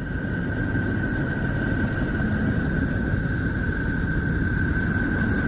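Space recording presented as the sound of Neptune: a steady deep rumbling noise with a single high tone held over it.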